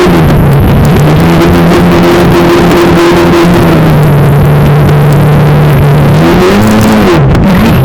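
RC plane's motor and propeller heard from a camera on board: a steady loud hum over heavy rushing noise. About six seconds in, the pitch swings up and back down, then dips near the end.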